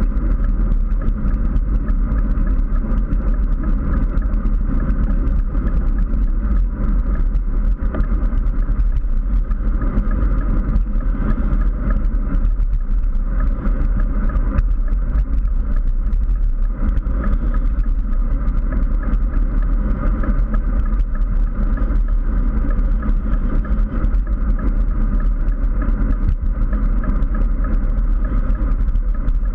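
Steady wind rush and rumble over a handlebar-mounted GoPro on a road bike riding at speed, with tyre and road noise underneath.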